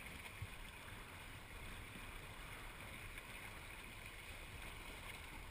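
Water washing steadily along a small sailing dinghy's hull, with a low rumble underneath.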